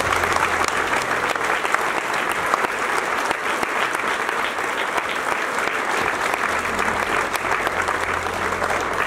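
Audience clapping steadily: dense applause from many hands, sustained without a break.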